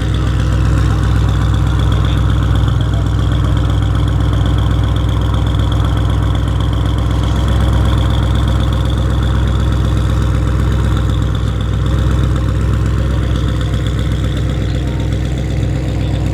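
Audi RS6 C8's twin-turbo 4.0-litre V8, running through catless downpipes and an OPF-delete exhaust, idling steadily with a deep, even drone.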